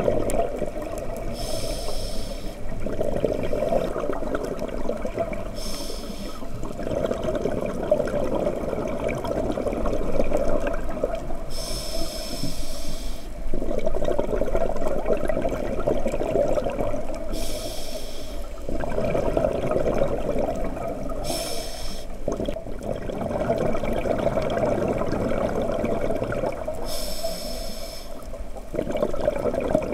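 Scuba diver breathing through a regulator underwater: six short hissing inhalations a few seconds apart, each followed by a longer stretch of exhaled bubbles.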